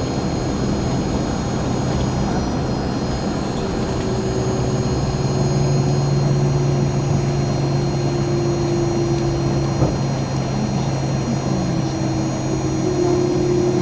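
Airbus A300 cabin noise while taxiing: steady jet-engine and air rush with a low hum that grows stronger about four seconds in, and a single click near ten seconds.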